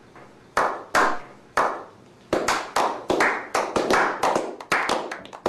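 A slow clap from a small group of men: single hand claps spaced out at first, then quickening about two seconds in into a run of fast claps.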